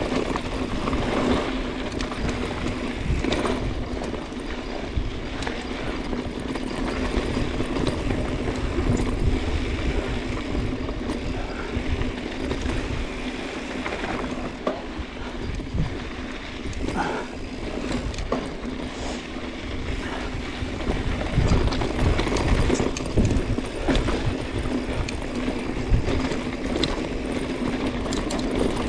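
Mountain bike riding fast down dry dirt singletrack: the tyres roll over gravel and rocks, the bike rattles over bumps, and there is a low rumble of wind on the microphone, with a faint steady hum under it all.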